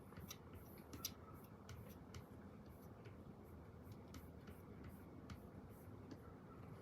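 Faint, irregular scratches and small taps of a pen writing on paper, over a low room hum.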